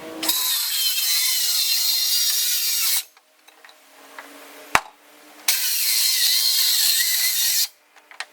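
A power tool working on wood in two bursts of about two and a half seconds each, starting and stopping abruptly, with a single sharp click between them.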